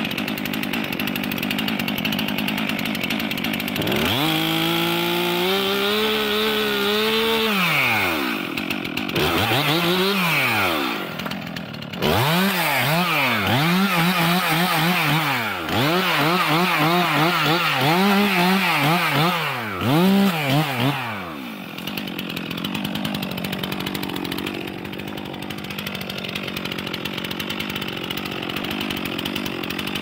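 A Stihl MS 362 C chainsaw with a 40 cm bar and full-chisel chain runs at low speed, is revved up about four seconds in, and cuts into the base of a spruce trunk. Under load the engine speed rises and falls again and again, about once a second. It drops back to idle a little after twenty seconds.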